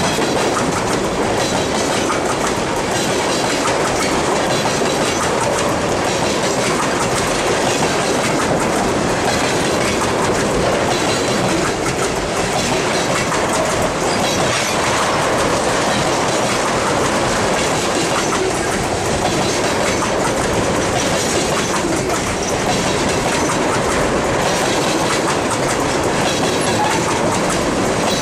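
Iowa Northern freight train's tank cars rolling past close by: a loud, steady noise of steel wheels running on the rails.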